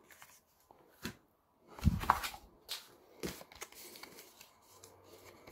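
Small white cardboard sleeve handled by hand as the SIM-ejector pin is pushed back into it: scattered light taps and paper rustles, the loudest a soft knock about two seconds in.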